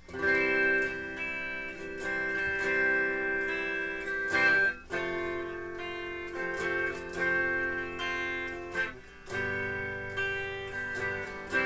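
A recorded guitar-like melody played back by a push-button sound device, in three phrases of sustained notes with brief breaks between them.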